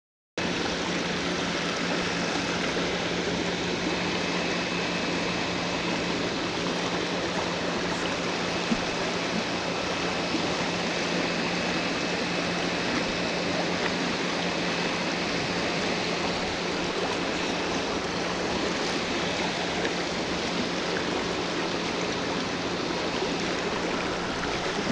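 Steady rush of fast-flowing creek water, an even unbroken roar that starts abruptly about half a second in.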